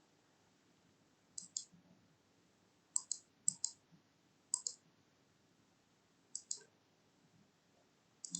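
Computer mouse button clicking six times at irregular intervals, each click a quick double tick of press and release.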